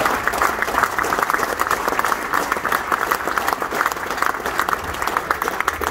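Seated audience applauding: many hands clapping steadily.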